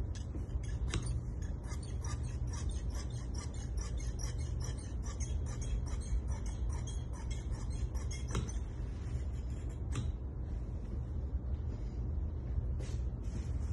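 Large tailor's shears snipping through cloth on a cutting table: a quick, even run of blade clicks about three a second, thinning to a few single louder clicks in the second half, over a low steady hum.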